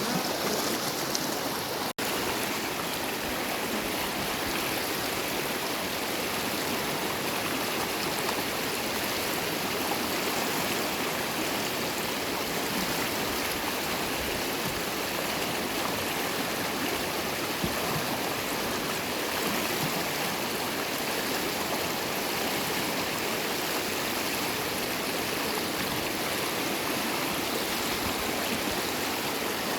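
Small river flowing over rocks: a steady, even rush of water, with the sound cutting out for an instant about two seconds in.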